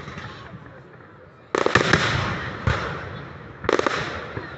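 Fireworks display: after a brief lull, shells burst about one and a half seconds in, again near 2.7 s and near 3.7 s, each a sudden bang with a scatter of sharp cracks that fades away.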